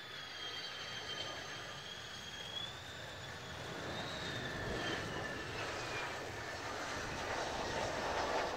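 Mitsubishi F-2 fighter's single F110 turbofan on landing approach: a high jet whine that slowly drops in pitch as the jet passes, over a roar that grows louder toward the end as it comes down to the runway.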